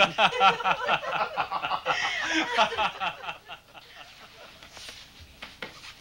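Laughter: chuckling for about the first three seconds, then it dies away to a quiet room with a few faint taps.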